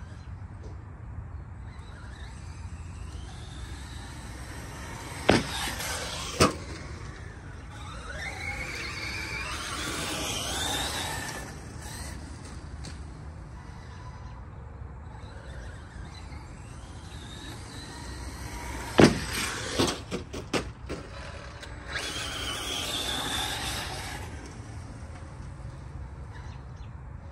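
ARRMA Mojave 4S radio-controlled short course truck driving and jumping: the whine of its brushless motor and drivetrain rises and falls in pitch as it speeds up and slows. Two sharp knocks of hard landings come around five and six seconds in, and a quick cluster of knocks follows around nineteen to twenty-one seconds in.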